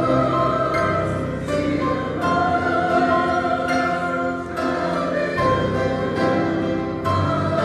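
Grand piano playing full chords, the harmony changing about once a second.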